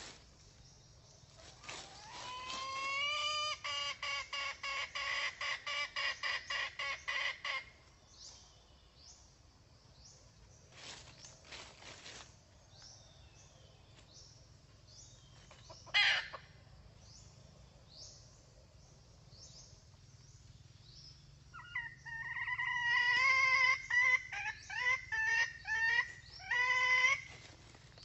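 Junglefowl hen calls: two bouts of rapid, repeated clucking notes, the first opening with a rising note and the second starting about three-quarters of the way through. A single short sharp sound comes about midway, with faint high bird chirps between the bouts.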